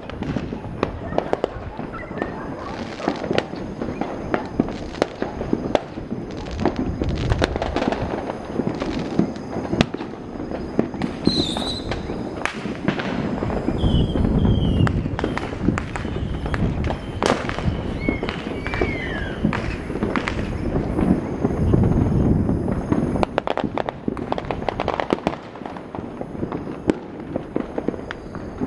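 New Year fireworks and firecrackers going off in many places at once: a continuous run of sharp bangs and crackles over a deep rumble, with a few short whistles partway through.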